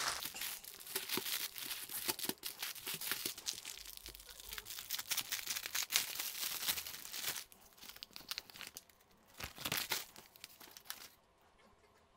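Clear plastic wrapping around strips of diamond painting drill bags crinkling and tearing as it is pulled open by hand. The crackling is dense for about seven seconds, then sparser, with one last short burst of rustling near the end.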